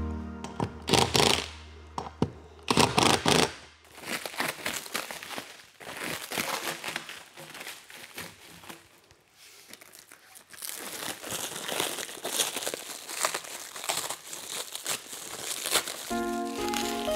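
A cordless impact wrench runs in two short bursts, tightening the nuts on a trailer wheel. Then plastic wrapping crinkles and tears as it is pulled off a steel frame part, with background music coming up near the end.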